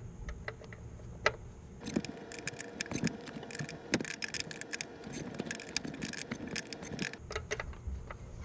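A 13 mm stubby ratcheting gearwrench clicking rapidly as it turns a fastener on the car's starter. A few scattered clicks come first, then from about two seconds in a quick run of ratchet clicks lasts about five seconds and stops near the end.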